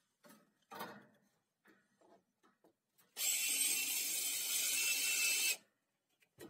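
Cordless drill running steadily into pallet wood for about two and a half seconds, starting about three seconds in and cutting off abruptly. A single knock comes about a second in.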